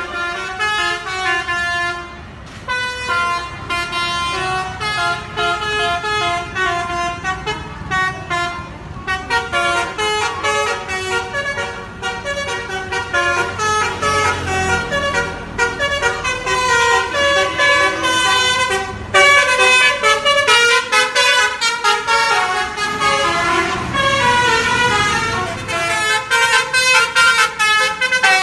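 Bus 'basuri' telolet horn playing rapid multi-tone tunes: quick runs of short pitched notes stepping up and down, one tune after another, with a low rumble beneath.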